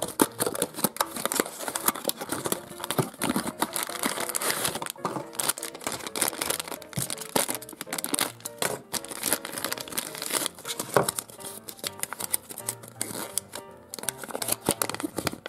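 Packaging being opened by hand: a cardboard box unfolded and a plastic candy-and-toy sachet crinkling and being slit open with a utility knife, giving many short rustles, crackles and tearing sounds. Quiet background music runs underneath.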